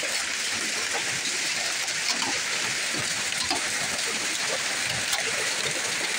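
Heavy rain falling and streaming off the edge of a corrugated roof onto wet ground: a steady hiss with small drip splats scattered through it.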